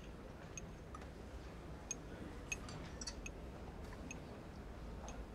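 Quiet ambience: a steady low rumble with scattered light ticks at irregular intervals.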